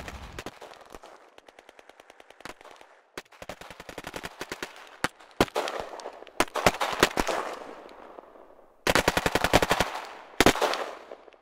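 Machine-gun fire in repeated rapid bursts with an echoing tail, faint at first and growing louder, with a few single shots between bursts; the loudest bursts come near the end.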